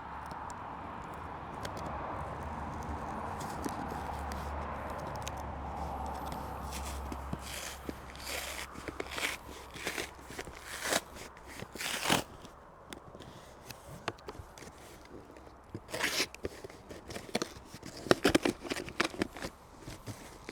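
A cardboard shipping box being cut and opened by hand: a steady scraping through the first several seconds, then crunching, rustling packaging and scattered sharp clicks and knocks as the flaps are pulled and the box is handled.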